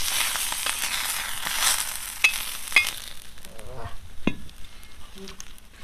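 Fish frying in oil on a flat tawa, sizzling, with metal spatula scrapes and taps as the fried fish are lifted onto a steel plate. The sizzle dies down after about three seconds, leaving a few separate clicks.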